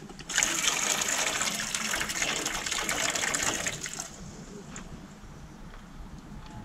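Old coolant pouring out of a BMW S1000R's plastic coolant reservoir as it is tipped to drain it, a steady stream of liquid that tails off and stops about four seconds in.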